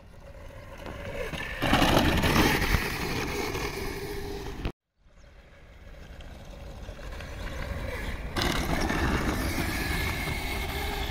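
36-volt Renegade electric children's quad bike riding toward the microphone over dirt: a steady electric motor whine over rumbling noise, getting louder as it nears. The sound cuts off abruptly a little before halfway, and a second approach starts quietly and builds up again.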